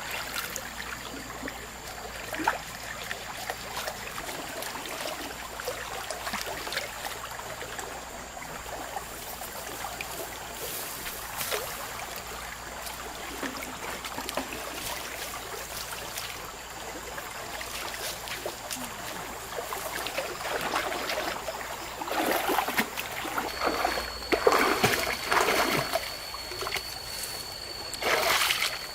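River rapids running steadily, with louder bouts of splashing in the last third. A thin, steady high tone joins about two-thirds of the way in.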